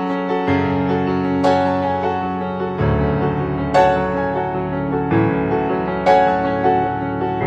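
Background piano music: sustained chords with accented notes struck about every two seconds.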